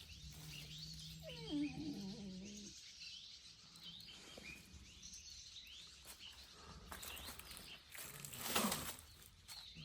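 Faint birds chirping in the forest, with a brief pitched sound a little over a second in and another short sound about eight and a half seconds in.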